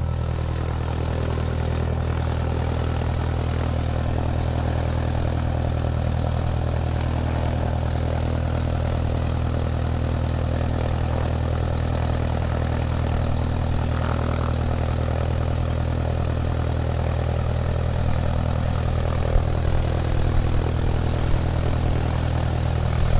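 Small DC hobby motor spinning a toy helicopter's wooden-stick rotor blades, running steadily at a constant speed.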